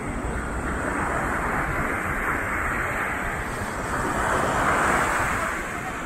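Sea surf breaking and washing up the sand in a steady rush, swelling to its loudest about four to five seconds in, with wind rumbling on the microphone underneath.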